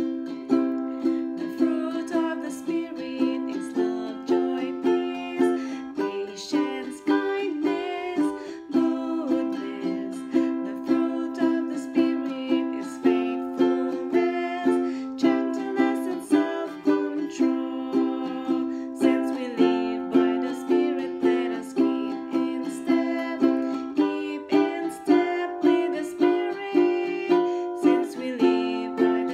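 Ukulele strummed in a steady rhythm, about two strums a second, accompanying a woman singing.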